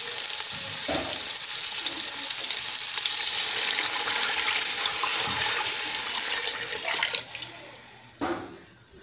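Water poured in a steady stream into a hot pot of seared beef shanks, splashing and sizzling on the hot oil. The pour tapers off about seven seconds in, and a short knock follows about a second later.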